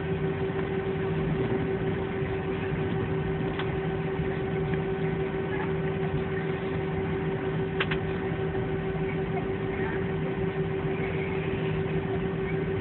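Steady drone inside a jet airliner's cabin, engines and cabin air running evenly with a constant whine and no spool-up, and two faint clicks.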